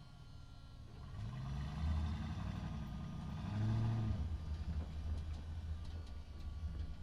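An engine running and revving up about a second in, with a second rise in pitch and level a little later, then settling to a steady low run.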